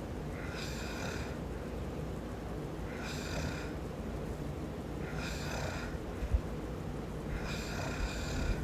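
A man snoring in his sleep: four snoring breaths, one about every two and a half seconds, over a steady low rumble. A short low thump about six seconds in.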